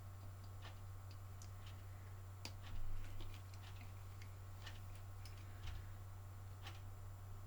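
Scattered light clicks and taps of small tools and parts being handled during soldering work at a bench, over a steady low hum. A slightly louder dull knock comes about three seconds in.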